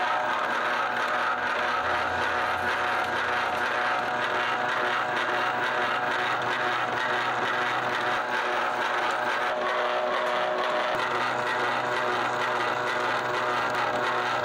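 Noodle-cutting machine running steadily as a sheet of yellow egg-noodle dough feeds through its rollers and cutters, extruding noodle strands.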